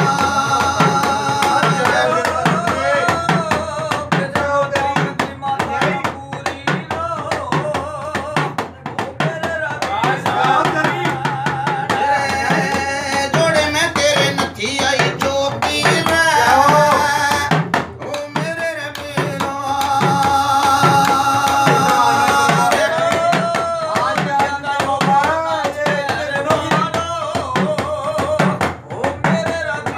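Men singing a devotional bhajan to the steady beat of stick-struck deru drums.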